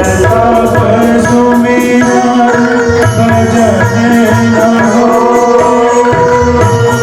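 Devotional music: tabla playing a rhythm under steady held notes, with a voice singing a melody over them.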